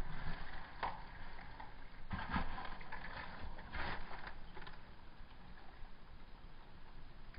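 A few irregular crunching footsteps on rubble and dry leaf litter, the loudest about two seconds in, over a low rumble.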